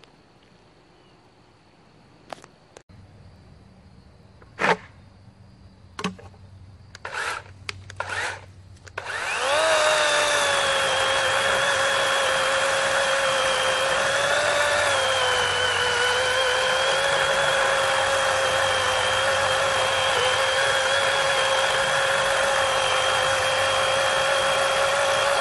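A few short clicks and knocks, then a DeWalt 20V XR brushless 12-inch battery chainsaw spins up about nine seconds in and runs steadily as it cuts through a log. Its electric motor gives a high, steady whine, whose pitch dips briefly partway through the cut.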